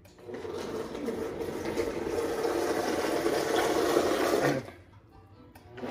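Countertop blender running, mixing a liquid protein shake, its sound building over the first second. It cuts off after about four and a half seconds, then starts up again near the end.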